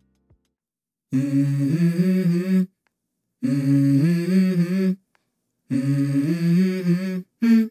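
Background music: a single voice humming a melody in three short phrases, with nothing else under it, after about a second of silence, with a brief fourth note at the end.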